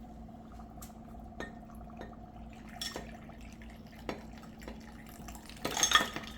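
Pieces of dry ice being added to a glass of juice: small clinks and drips, with a louder clinking splash near the end.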